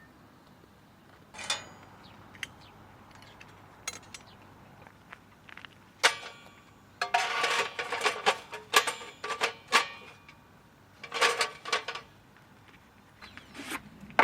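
Small hard objects clattering and clinking in several bursts, with the busiest run of clicks in the middle, like dishes and utensils being handled.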